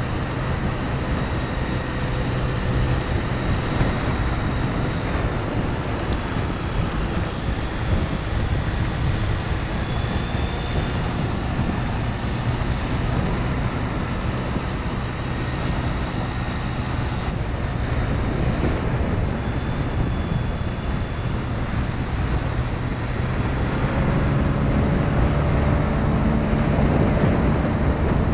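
A motor scooter's engine running under way with steady wind noise on the microphone. The engine note rises slightly over the last few seconds.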